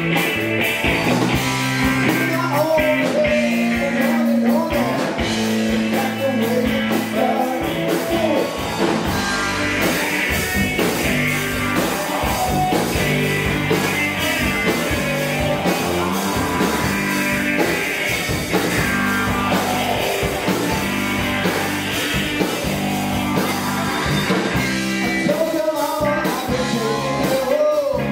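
Rock band playing electric guitar, bass guitar and drums, with a singer's voice over them.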